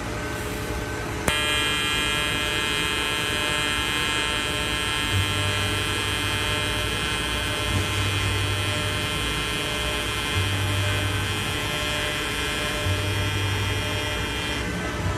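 Pulsed TIG welding arc from a Miller Dynasty 280DX, struck about a second in with a sharp click and then held as a steady pitched buzz, stopping just before the end.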